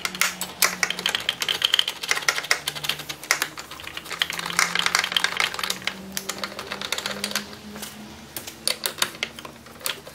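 Ratchet wrench clicking in quick runs as the battery hold-down bracket bolt is tightened.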